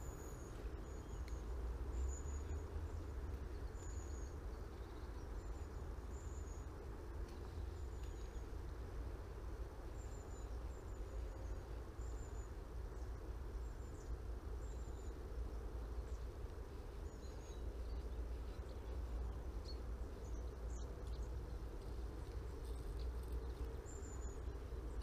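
Steady river flow and wind rumbling on the microphone, with a bird giving short high chirps every second or two.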